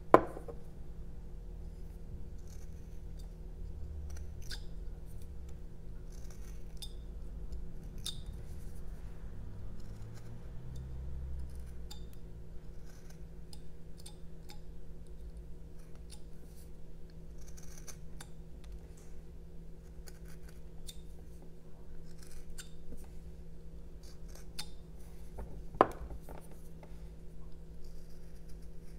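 Small hand carving knife making short slicing and scraping cuts in a jelutong block, heard as faint scratches and light clicks. Two sharp knocks with a short ring stand out, one right at the start and one near the end.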